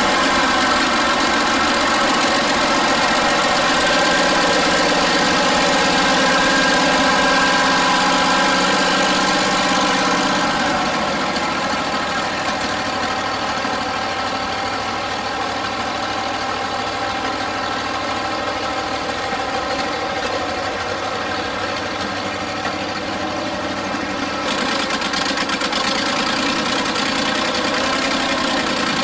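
Massey Ferguson 35 tractor and New Holland Super 77 hay baler running, a steady engine note throughout. About ten seconds in the sound drops a little and turns duller, then brightens again near the end.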